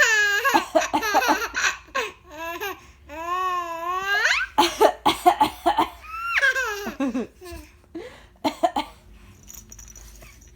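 A baby laughing: long high squeals that rise and fall, near the start, about three seconds in and about six seconds in, with quick runs of giggles between them, dying away about nine seconds in.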